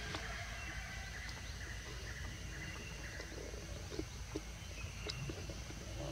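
Outdoor forest ambience: a steady low rumble with faint chirps from small animals and a few scattered small clicks.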